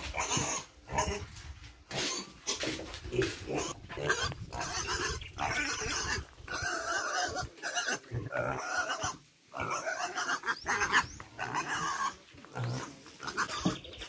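Repeated animal calls in short bursts with brief pauses between them.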